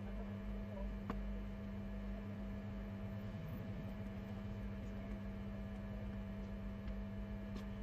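Steady electrical hum with a few faint clicks, one about a second in and another near the end.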